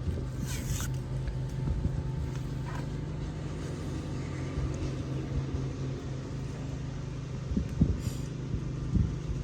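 Steady low hum of an idling vehicle engine, with a few brief rustles about half a second in and a couple of short knocks near the end.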